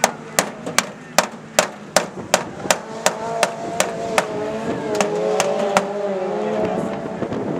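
Hammer blows on metal in a steady rhythm, about two and a half a second, stopping about six seconds in. From about three seconds an engine revs up and down in the background.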